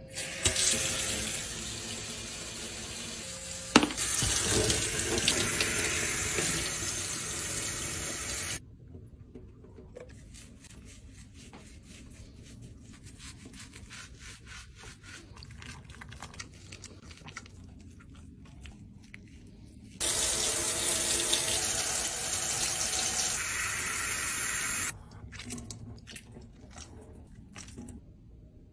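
Kitchen faucet running water into a stainless-steel sink while a small dog is bathed. The water stops after about eight and a half seconds, leaving quieter handling of the wet, lathered coat. The tap runs again for about five seconds near the end.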